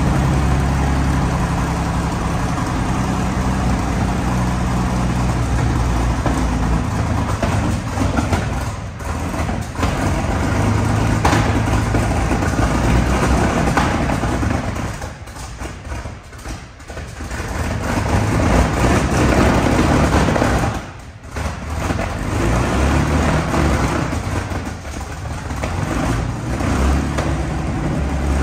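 Rolls-Royce Meteor V12 petrol engine of a Centurion armoured recovery vehicle running, its sound dipping sharply twice, around the middle and about two-thirds of the way through.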